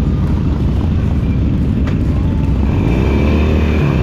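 Motorcycle engine running with a steady low rumble; about three seconds in, its pitch swells up and falls back.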